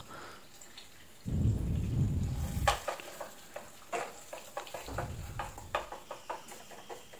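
Eggs being scrambled in hot oil in a pan: a spatula ticking and scraping against the pan over a faint frying sizzle. A low rumble comes twice, about a second in and again about five seconds in.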